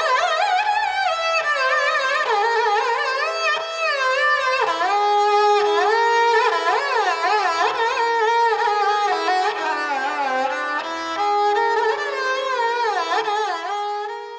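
Instrumental background music: a single melody line of sliding, ornamented notes over a steady drone, in a South Indian classical style. It starts abruptly and stops just before the end.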